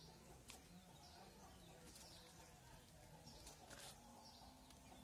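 Near silence, with faint bird chirps in the background and a few soft, short scratches of a ballpoint pen writing on paper.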